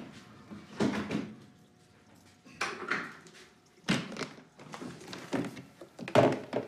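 A clear plastic storage bin being handled: lifted down from a shelf, set down on a desk and opened, with several separate thumps and knocks of plastic, the loudest near the end.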